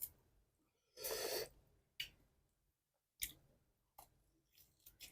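Mouth sounds of a person eating close to the microphone: a few sharp wet clicks and smacks of chewing, with one short breathy sound about a second in.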